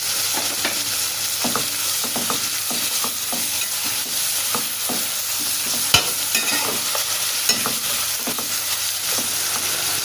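Onions and ginger-garlic paste sizzling in hot oil in a pan while a spoon stirs them, tapping and scraping against the pan about twice a second, with one sharper knock about six seconds in.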